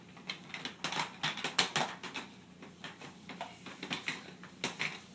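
Irregular light tapping and clicking, a dozen or so short knocks scattered unevenly, some close together.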